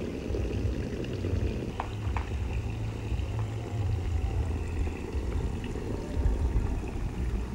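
Water running from a hose nozzle into an inflatable paddling pool, a steady splashing wash over a low rumble, with a few faint ticks about two seconds in.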